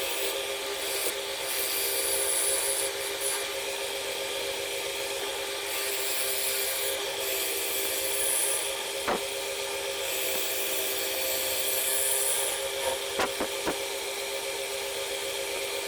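Wood lathe running with a steady motor hum while a tool works the spinning wooden blank in several passes of high-pitched hissing, each a second or two long. A few sharp knocks come near the middle and again later.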